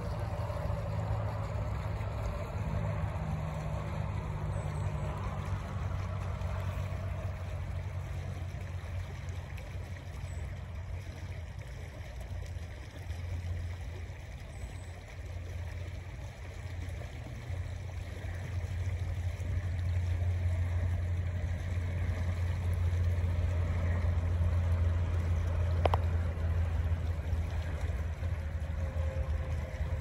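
River water running, with a steady low rumble underneath. A single sharp click comes near the end.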